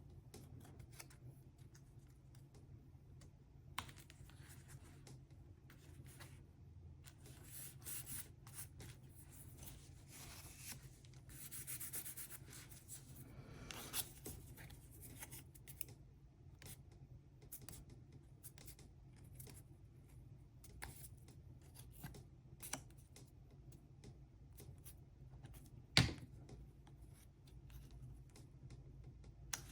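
Paper craft pieces being handled and glued down: quiet rubbing and rustling of cardstock with scattered light clicks and taps, including a longer scratchy rubbing stretch midway. One sharper knock comes near the end.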